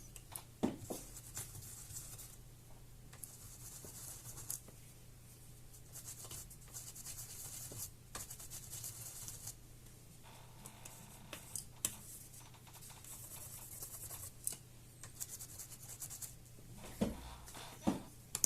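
Scratchy rubbing and wiping in uneven stretches, with a few light knocks: old thermal paste being cleaned off a laptop CPU and heatsink.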